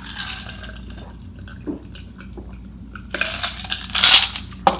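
Sips from a glass of drink, then handling sounds: a few light clinks, a loud rustling burst about three to four seconds in, and a sharp knock near the end as the glass is put down and something else is picked up.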